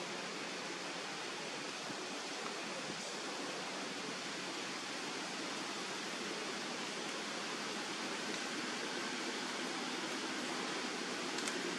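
Steady, even rushing background noise with no distinct calls or knocks.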